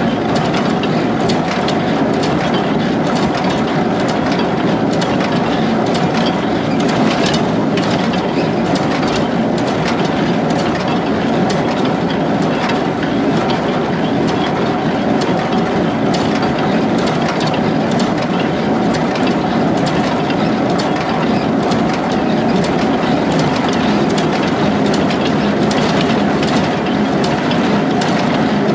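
Tractor engine running steadily while pulling a small square hay baler, with the baler's continuous mechanical clatter and frequent clicking.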